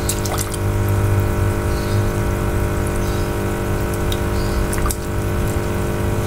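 Small electric water pump humming steadily, with a few light splashes and drips as a hand moves through the shallow tank water.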